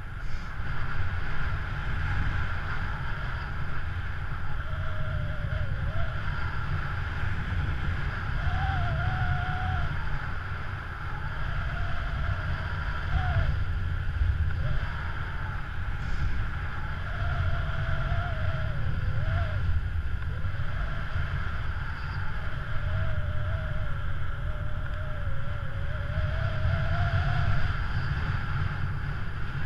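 Wind rushing over a paraglider pilot's point-of-view camera microphone in flight: a steady low rumble, with a faint wavering tone drifting in and out.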